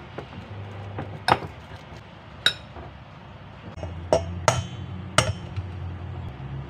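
A metal fork clinks against a ceramic bowl twice while mashing bananas. Then an egg is knocked three times in quick succession on the rim of a stainless steel mixing bowl to crack it, each knock making the bowl ring briefly.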